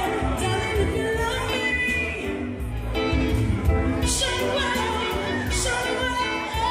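Live reggae music: a singer's voice carried over a band with heavy bass and regular cymbal strokes.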